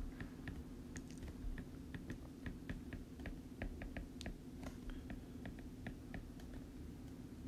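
Faint, irregular clicks of a stylus tapping on a tablet screen during handwriting, a few per second, over a steady low hum.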